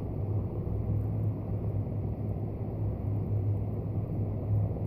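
Loud, steady low hum and rumble of unknown origin, sounding like a helicopter or several trucks on a highway far off.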